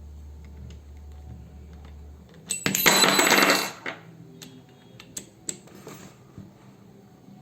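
A loud metallic clatter lasting about a second, then a few light clicks, from metal drill accessories and the chuck key being handled as a bit is fitted into the drill's chuck.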